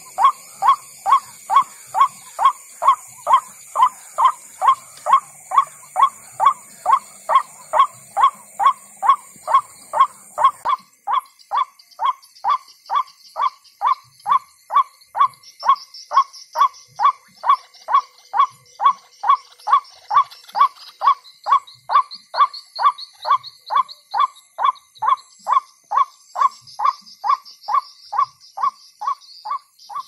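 Electronic bird caller playing a recorded white-breasted waterhen (ruak-ruak) call through its loudspeaker: a loud, even call repeated about twice a second without a break. A high steady hiss behind it cuts off about ten seconds in, and faint high chirps follow.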